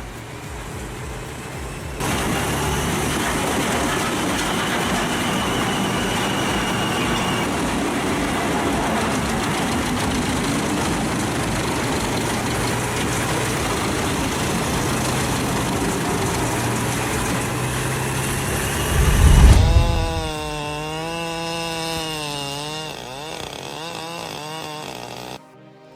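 Large industrial drum wood chipper running: a dense, steady grinding din as it works, a heavy low thud about nineteen seconds in, then an engine note that rises and falls in pitch before the sound drops off near the end.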